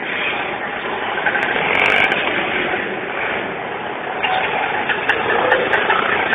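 Street traffic: vehicle engines, auto-rickshaws among them, running steadily close by, with a few faint clicks in the second half.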